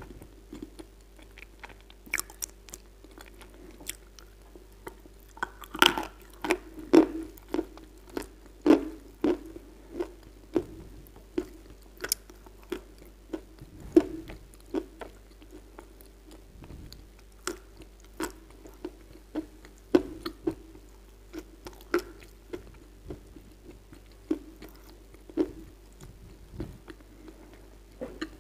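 Close-miked chewing of a mouthful of Kyrgyz edible clay: a series of sharp, moist crunches and crackles, about one or two a second, busiest between about six and nine seconds in.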